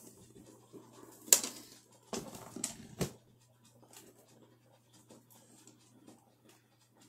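Handling noises from a singing-fish plaque's nameplate being worked at: a sharp click about a second in, a cluster of knocks and rustles between about two and three seconds, then faint scratching and ticking.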